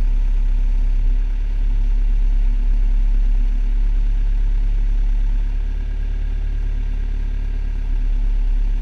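Skid steer loader engine running steadily, heard from inside the operator's cab while the machine handles a salt spreader; the engine note eases off a little past halfway and picks up again near the end.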